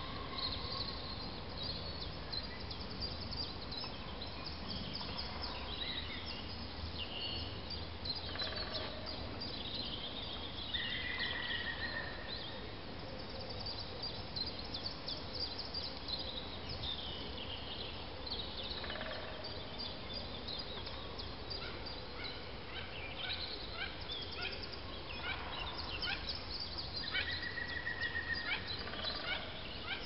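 Morning bird chorus of many birds chirping and calling at once, over a low steady background noise. A rapid series of repeated notes stands out twice, about ten seconds in and near the end.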